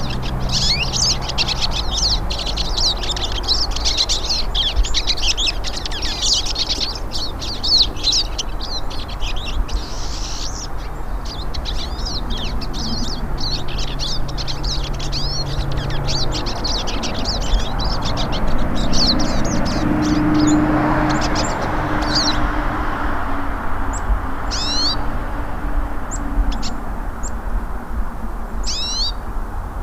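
Several hooded siskins (pintassilgo) singing: a fast, dense twittering song for the first ten seconds or so, then sparser phrases with a few short down-slurred calls near the end. A steady low hum runs underneath.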